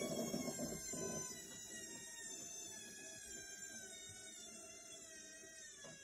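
Indesit front-loading washing machine winding down at the end of its spin cycle: a rumble drops away about a second in, then the motor's whine falls slowly in pitch and fades.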